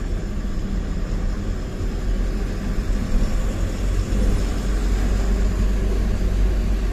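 Tata 1512 truck's diesel engine running steadily on the move, with tyre and wind noise.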